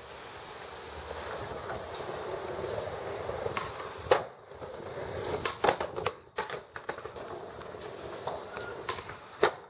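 Skateboard wheels rolling over stone paving, then a series of sharp wooden clacks as the board is popped, flipped and lands on the ground during tricks.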